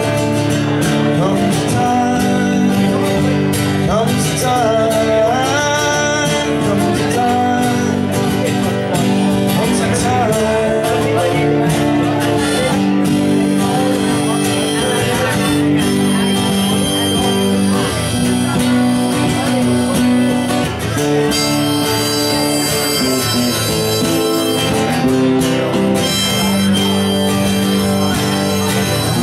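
A live acoustic duo playing: two acoustic guitars with a singing voice over them.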